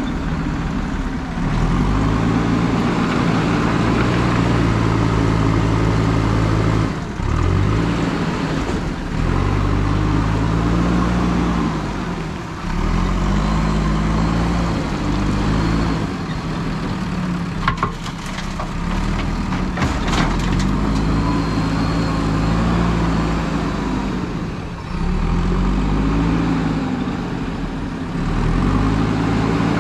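JCB 3DX backhoe loader's diesel engine running under load, its pitch rising and falling every few seconds as it is revved up and eased off while the machine drives and works its bucket. A few sharp knocks come about two-thirds of the way through.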